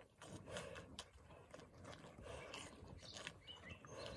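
Cattle drinking from a stock tank: faint slurping and gulping in a loose rhythm, roughly once a second.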